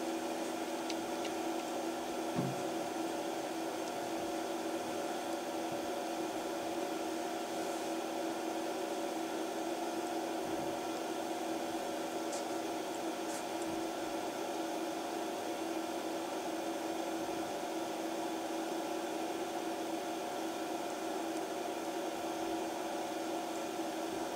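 Steady machine hum, like a fan or motor, with several level tones, and a few faint ticks about halfway through.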